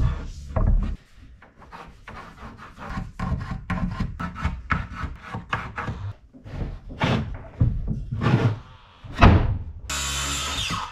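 Mahogany boards being slid, scraped and knocked about on a plywood workbench while they are fitted and scribed: irregular scrapes and sharp wooden knocks, the loudest a little after 9 seconds. Near the end a power tool starts up and runs loud and steady.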